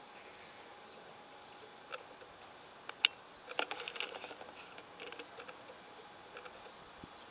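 Faint steady chirring of insects outdoors, with scattered sharp clicks and ticks: a loud single click about three seconds in and a quick cluster of them just after.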